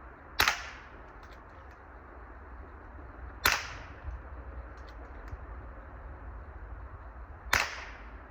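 Three gunshots, spaced about three to four seconds apart, each a sharp crack with a short tail.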